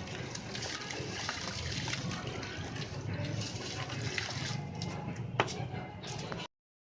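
Red sand-cement concrete being crumbled and crushed, a continuous grainy crunching hiss with scattered sharp cracks, one crack louder than the rest past the middle. It cuts off abruptly near the end.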